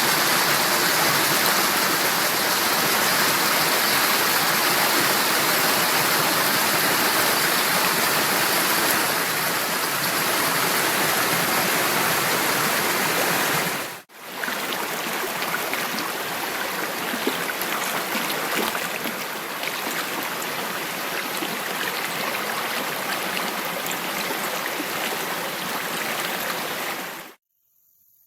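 Recording of steadily rushing stream water. It drops out for a moment about halfway and resumes, slightly quieter, then cuts off shortly before the end.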